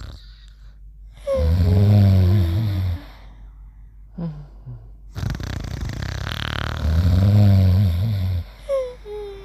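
Cartoon snoring, twice, about five seconds apart: each is a loud, low buzzing snore with a whistling tone that falls in pitch, and soft breathing in between.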